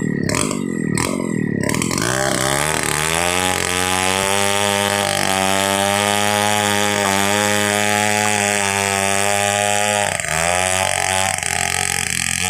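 Stihl 070 two-stroke chainsaw chugging slowly at low revs, then throttled up about two seconds in, its pitch rising to a steady high whine at full throttle. The revs dip briefly near ten seconds and come straight back up.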